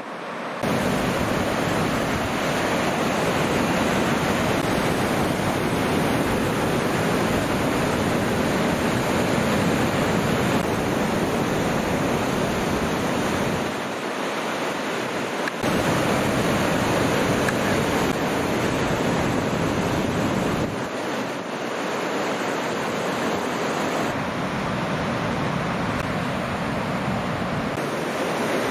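Ocean surf breaking and washing ashore, a continuous rush of noise, with wind buffeting the microphone. The level jumps abruptly a few times.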